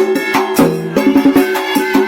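Vietnamese funeral music: quick, dense drum and wood-block strikes over steady held notes.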